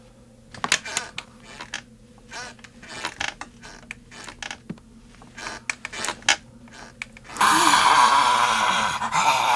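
Horror-film sound design: a run of irregular creaks and clicks, then, about seven seconds in, a sudden loud, harsh, sustained screech.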